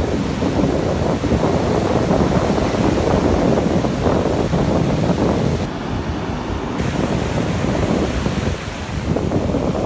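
Ocean surf breaking close by and foam washing up the sand, a continuous rush of water, with wind buffeting the phone's microphone.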